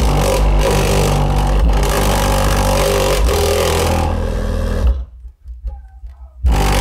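Bass-heavy music played loud through a Digital Designs DD1508 8-inch car subwoofer, recorded close and distorting. The music drops out for about a second and a half near the end, then comes back.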